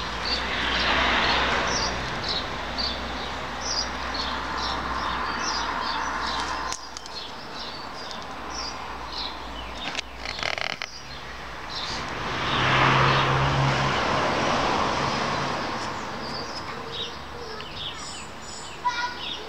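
Small birds chirping in short, repeated high notes, over a background rush of traffic that swells twice, near the start and again about two-thirds of the way through.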